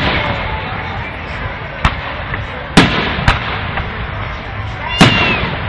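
Display fireworks bursting overhead: four sharp bangs at uneven intervals, the loudest near three seconds in and again about five seconds in, over a steady background rumble and hiss.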